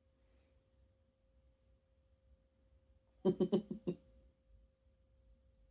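A faint steady pure tone, like a sine wave hum. About three seconds in, a man gives a short chuckle of four quick pulses.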